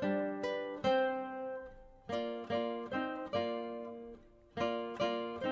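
Instrumental background music on a plucked string instrument, notes picked in phrases that die away briefly twice.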